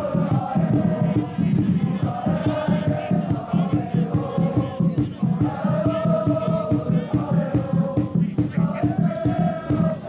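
Supporters' cheering section singing a chant in unison over a steady drum beat.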